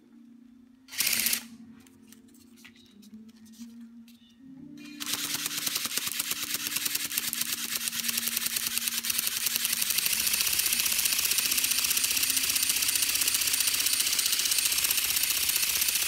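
Remote-control flapping-wing bird (ornithopter) run in the hand, its small battery-powered motor and gear drive beating the wings. There is a short burst about a second in, then from about five seconds in a loud, steady, rapid mechanical rattle.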